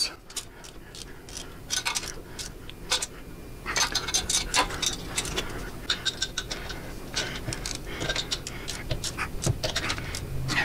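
Ratchet torque wrench clicking in quick irregular runs as the exhaust header flange nuts are tightened to 105 inch-pounds. The clicks start about two seconds in and grow denser.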